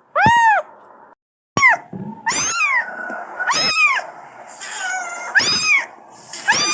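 Angora kitten meowing over and over, about six or seven high-pitched cries that each rise and fall in pitch: a kitten's calls for its mother.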